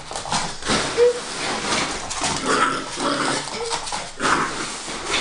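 Puppy making a string of short, high yips mixed with rough, noisy sounds while playing.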